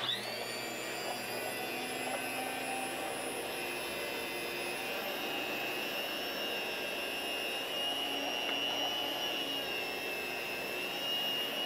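Ostba electric deli slicer running with a steady high whine as its spinning circular blade slices roast beef.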